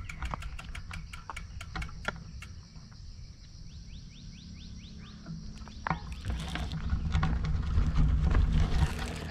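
Insects buzzing steadily in roadside grass and trees, with a brief run of short, evenly repeated chirps midway. A low rumble builds over the last three seconds and is the loudest sound.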